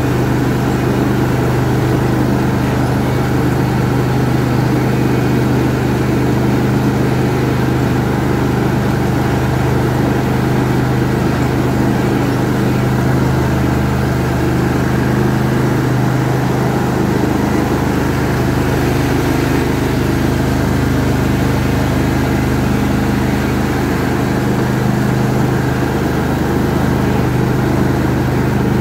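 John Deere D140 ride-on lawn tractor engine running steadily as the tractor is driven across a lawn.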